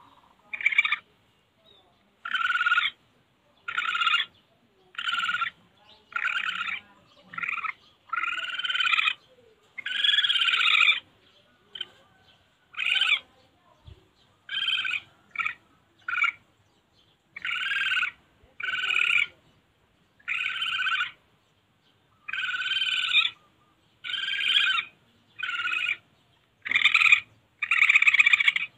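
Recorded civet calls used as a hunting lure: one call after another, roughly once a second. Each call lasts half a second to a second, with a few shorter ones in between.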